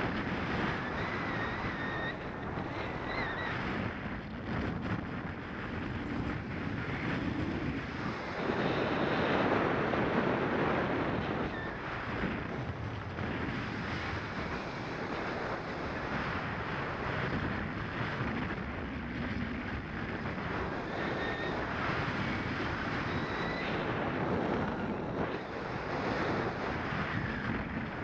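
Airflow rushing over the microphone in paraglider flight, a steady rush that swells a little about a third of the way in. A faint high tone comes and goes a few times.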